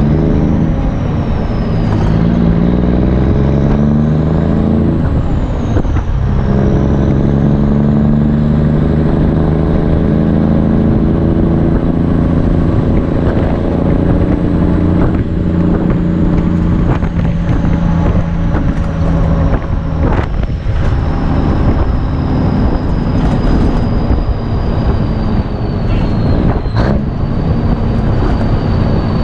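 Straight-piped Cummins NTC 240 small-cam diesel in a 1982 Ford LN9000 pulling through the gears of its 10-speed. The engine note drops and climbs at gear changes in the first few seconds, then holds a long, fairly steady pull with brief dips later on.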